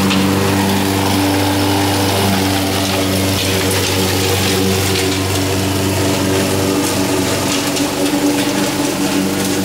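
Honda HR194 push mower's single-cylinder four-stroke engine running steadily while the mower cuts grass at a very low height setting.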